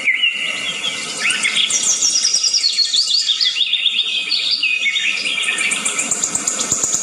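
Several songbirds chirping and calling in quick, overlapping high notes, with a run of falling notes about two seconds in.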